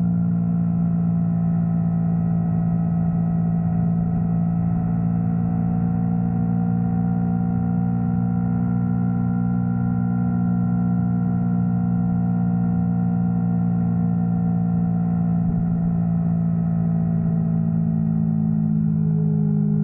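Yamaha R3's parallel-twin engine running at a steady cruise, a constant drone that holds one pitch and shifts slightly near the end.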